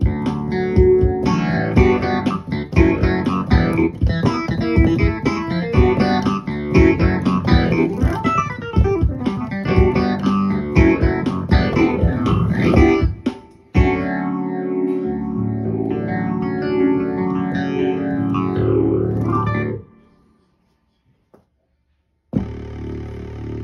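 Roland Fantom keyboard played through a Fender Rumble 40 bass amplifier: a busy stretch of quick notes, then held chords for several seconds. After a brief silence near the end, a different steady held sound comes in.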